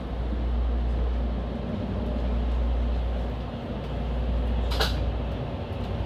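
Train running, heard from inside the carriage as it moves along a station platform: a steady low rumble, with one short clack near the end.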